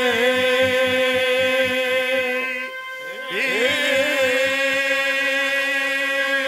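Haryanvi ragni singer holding a long, wavering sung note over a steady harmonium drone and a quick, even dholak beat. The voice breaks off briefly about three seconds in and returns with a rising glide to the same held note.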